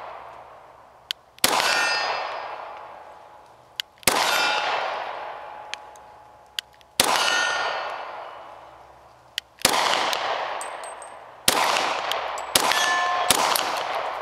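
Six shots from a Springfield XD-40 .40 S&W pistol, fired at an irregular pace, with the last two close together near the end. Each shot is followed by a long ringing decay, with steel target plates ringing after several of them.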